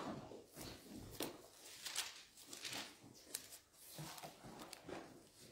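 Faint rustling of paper as Bible pages are turned and handled: a series of short, soft swishes.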